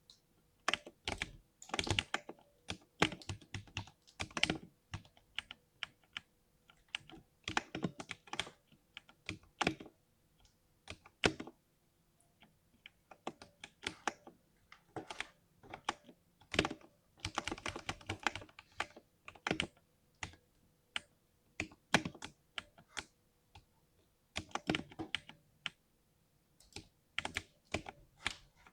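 Typing on a 60% mechanical keyboard, irregular runs of keystrokes with short pauses between them, each key landing with a deep, muted "thock".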